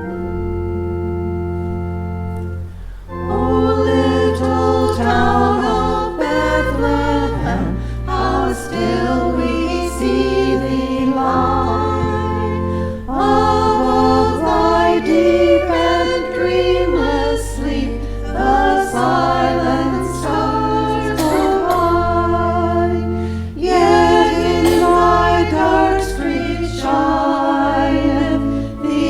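Church choir singing with organ accompaniment. The organ holds sustained chords alone at first, and the choir comes in about three seconds in over steady low organ notes.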